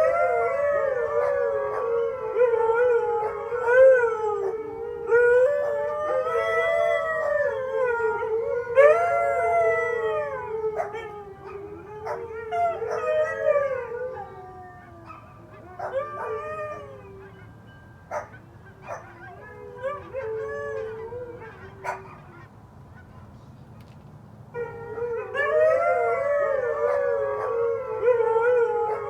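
Several huskies howling together, their overlapping voices wavering up and down in pitch. About halfway through the chorus fades to a few short yips and clicks, then swells into full howling again near the end.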